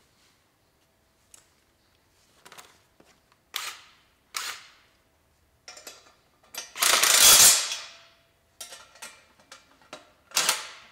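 Clatter and scraping from handling a mower chute blocker and its mounting hardware, the loudest being a rough scrape of about a second partway through. Near the end a ratchet wrench starts clicking in quick strokes as the nuts are snugged down.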